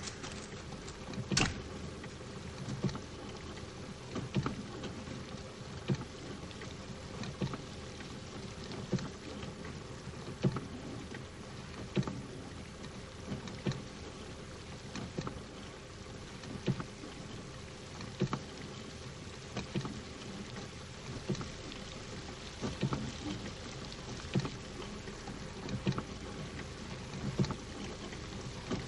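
Steady engine hum and road noise inside a moving ambulance, with a soft thud repeating evenly about every second and a half.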